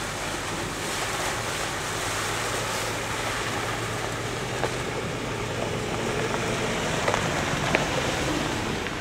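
Toyota Hilux four-wheel drive creeping toward and past at low speed: a low, steady engine hum that grows a little louder as it nears, under a steady hiss.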